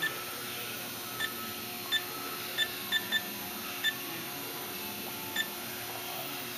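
Keypad of a Haas CNC control beeping as keys are pressed: about eight short, high beeps at irregular intervals, over a steady low hum.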